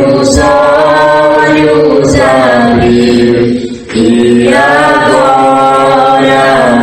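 A woman singing a Portuguese hymn with long held notes. She pauses for breath about three and a half seconds in, then carries on.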